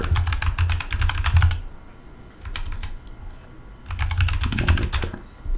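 Typing on a computer keyboard: a quick run of keystrokes in the first second and a half, a few single key presses around the middle, then another run about four seconds in.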